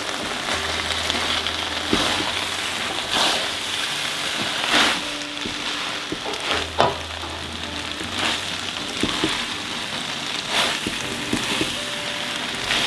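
Flat rice noodles and bean sprouts sizzling in a hot metal wok as they are stir-fried, with the spatula knocking and scraping against the pan every second or two.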